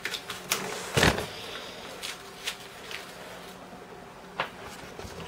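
Knocks and scrapes of a cardboard TV box being handled and opened, the loudest a thump about a second in, with a few lighter knocks after.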